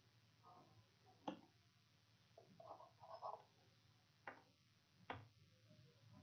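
Near silence: room tone with three faint, short clicks spread through it.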